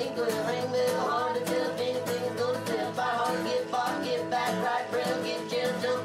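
Background music: a song with a singing voice over a steady beat.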